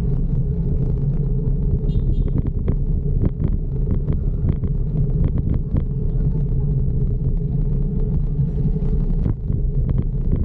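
Steady low rumble of riding a bicycle through city traffic, with wind on the microphone and scattered sharp clicks and rattles.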